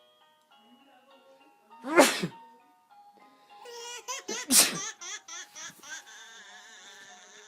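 A baby sneezing twice, once about two seconds in and again, louder, about four and a half seconds in, with a run of short laughs around the second sneeze. Background music plays throughout.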